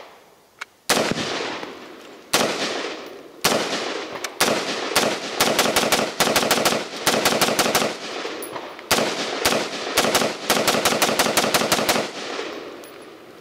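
Springfield Saint AR-15 rifle fired semi-automatically. First come single shots about a second apart, then quick strings of several shots a second, each shot followed by a short echo.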